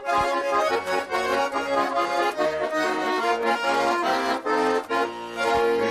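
Russian garmon (button accordion) playing a lively instrumental break in a folk song: quick runs of sustained, reedy notes and chords in a steady dance rhythm.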